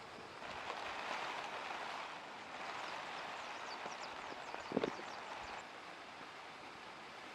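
Heavy rain falling as a steady hiss that swells for several seconds and then eases back, with a single sharp thump about five seconds in.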